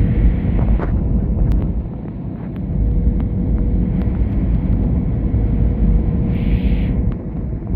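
Airbus A320 airliner noise heard from the cabin during the landing: a loud, deep rumble with a steady hum running under it and a few light clicks or rattles.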